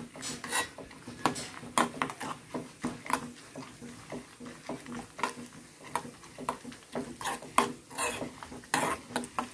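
A metal spoon scrapes and clinks against a small pan in irregular strokes, about one or two a second, stirring chopped almonds and cloves as they fry in ghee.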